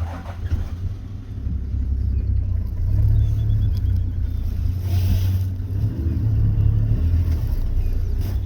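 Safari game-drive vehicle's engine running as it drives, a steady low rumble that comes in suddenly at the start, with faint bird chirps above it.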